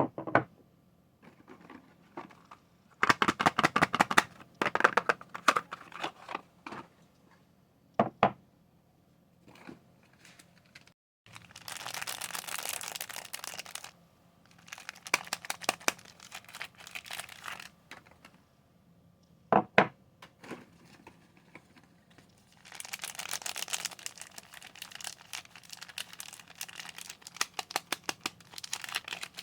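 Soap wrappers being unwrapped by hand: packaging crinkling and tearing in bursts of crackle, with longer stretches of steady rustling.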